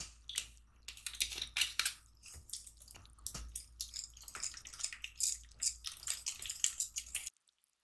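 Wire whisk beating a wet, creamy butter, egg and vanilla mixture in a glass bowl: quick, irregular clicks and squelching scrapes of the wires against the glass. It stops abruptly near the end.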